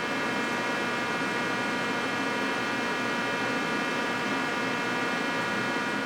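Fryer ET-18 CNC lathe running steadily: a constant whine of several even high tones over a hiss, with no change in speed.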